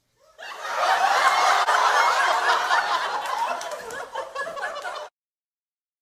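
Theatre audience laughing, swelling quickly and then tapering off before cutting off suddenly near the end.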